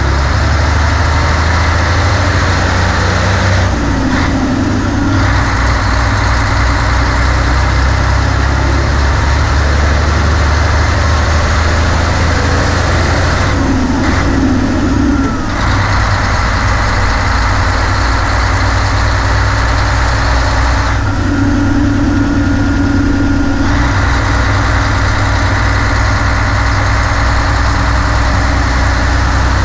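Nissan Diesel KG48U truck crane's 12.5-litre PF6TB turbocharged intercooled diesel engine running under way with the manual gearbox, a steady heavy drone. Its note drops back briefly three times, about 4, 14 and 21 seconds in.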